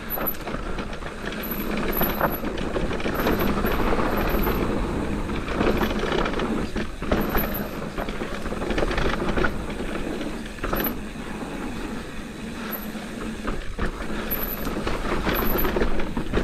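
Mountain bike rolling down a dirt trail: a steady noise of tyres on dirt, with the bike rattling and knocking over bumps many times a second.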